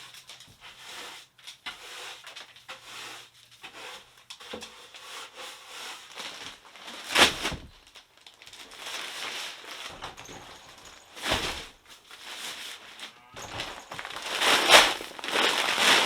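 Irregular rustling and crinkling, with a few louder scraping bursts about halfway through, again a few seconds later, and near the end.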